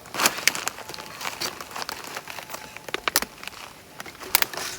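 Crinkling and rustling with many short, sharp clicks scattered through, as things are handled at close range.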